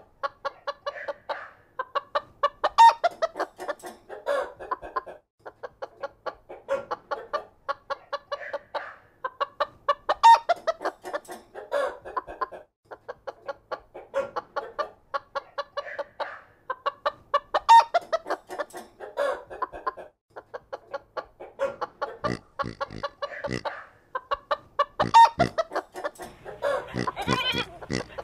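Chickens clucking in quick runs of short, stacked clucks and calls. The same sequence repeats almost identically about every seven and a half seconds, like a looped recording.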